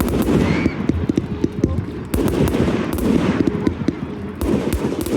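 Fireworks going off in quick succession: a dense run of sharp crackling pops and bangs, one close on another.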